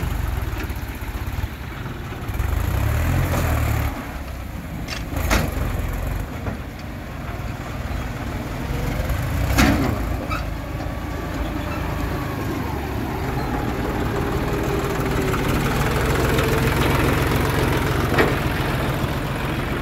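Tractor engine running steadily at low revs, louder for a couple of seconds early in the stretch, with a few sharp knocks over it.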